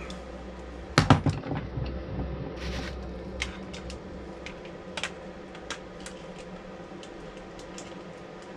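A quick clatter of small hard clicks and knocks about a second in, then scattered light clicks and taps, with a brief hiss near three seconds: small parts and tools being handled at a workbench during wiring work, over a steady low hum.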